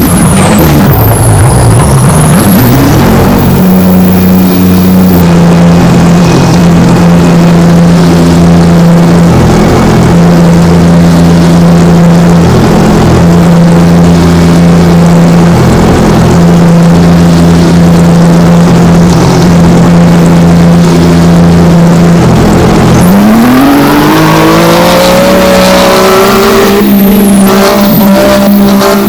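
A loud motor running at a steady pitch for most of the time, then rising in pitch and holding higher near the end.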